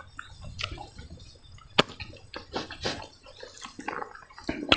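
Wet chewing and lip-smacking from someone eating chicken curry and rice by hand, heard as a scatter of sharp, irregular wet clicks.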